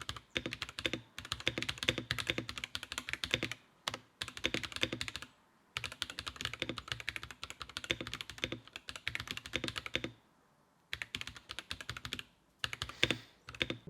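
Typing on an Akko 5075B Plus mechanical keyboard fitted with Akko V3 Cream Blue tactile switches: quick runs of keystroke clicks with a few short pauses. It has a well-damped, 'súper bueno' sound.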